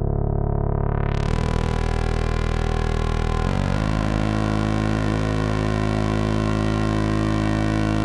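Korg ARP 2600 synthesizer playing the Octabass patch: held, deep bass notes rich in overtones. The tone brightens sharply within the first second, and the pitch changes twice, about a second in and again near the middle.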